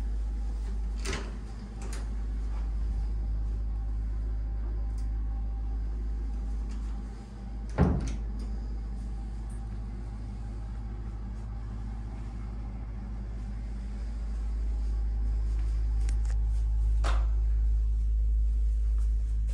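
A steady low rumble, with a few light knocks and one louder thump about eight seconds in.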